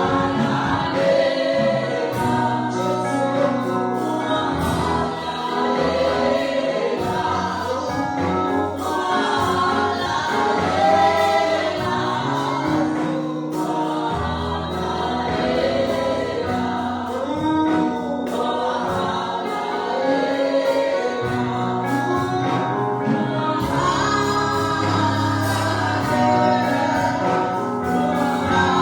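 A church choir and congregation singing a gospel worship song, with instrumental accompaniment holding long low notes underneath.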